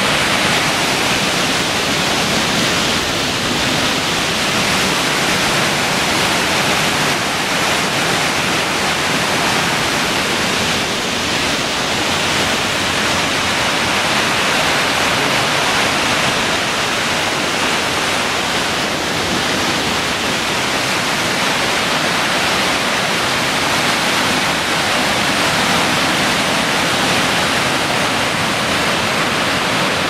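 Tall alpine waterfall cascading down a rock face, a loud, steady rush of white water heard close up.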